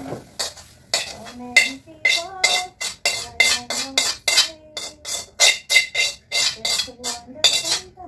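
A large metal basin being wiped out by hand with a cloth scrubber: quick rubbing strokes, about three a second, each making the bowl ring.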